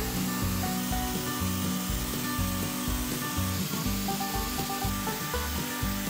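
Angle grinder with a sanding disc abrading a rusty steel trailer frame, a continuous sanding hiss, mixed with background music that has a steady low beat.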